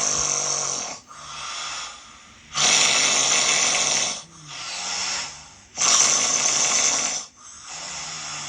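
Loud snoring from a man who has had snoring surgery: three loud, rough snores about three seconds apart, with quieter, lower-pitched breaths between them.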